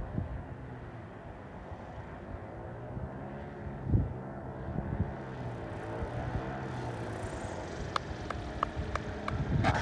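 Engine of a giant RC Albatros D.V, a custom 124 cc inline twin built from two Zenoah single-cylinder engines and geared to a big propeller, running as a steady low drone with wind buffeting the microphone. From about eight seconds short clicks come in, and near the end the sound grows louder and rattly as the model rolls on its wheels along the runway.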